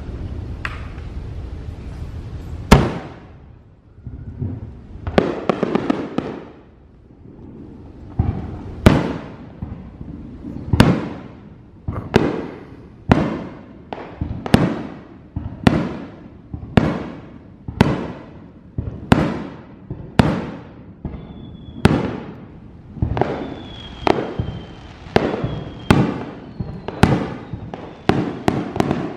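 Aerial fireworks bursting in a display: sharp bangs, each dying away in a rumble. They come a few seconds apart at first, then about one a second from about eight seconds in. Partway through, a thin whistling tone sounds faintly between the bursts.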